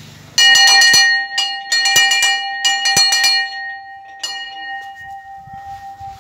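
Small hand-rung brass temple bell struck repeatedly by its clapper in a quick series of clangs starting about half a second in, with one last strike a little after four seconds. Its ringing fades slowly, one steady tone lingering longest.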